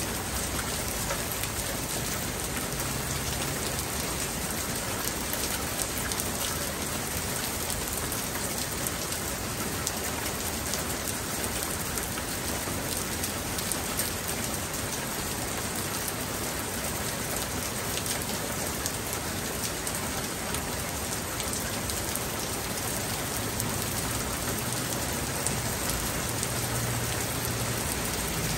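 Steady rain falling, a constant even hiss with many small drops ticking on nearby surfaces.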